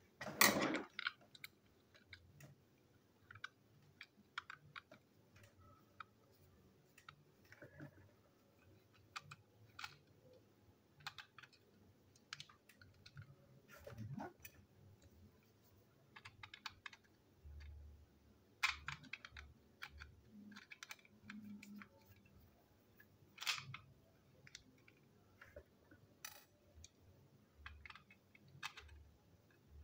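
Scattered small clicks and taps of a plastic toy train engine and its small parts being handled and unscrewed with a small screwdriver, with a louder clatter just at the start.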